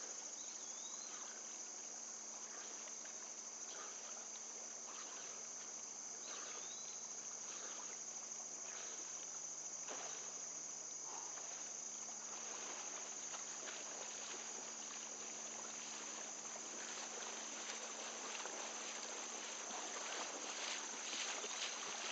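A steady high insect chorus runs throughout, over water sloshing and splashing as a person moves through flood water. Near the end the splashes come faster and louder as the person runs through the shallows.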